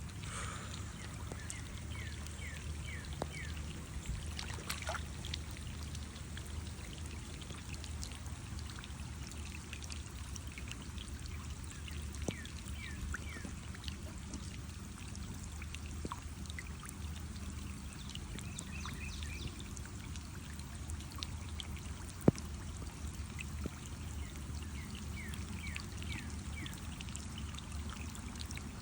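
Steady pouring, trickling water at a pool, with scattered light clicks and one sharp tap about 22 seconds in.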